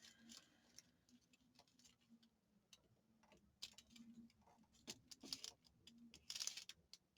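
Near silence: faint scattered ticks and a few brief rustles of paper pieces being handled at a craft desk, over a faint steady hum.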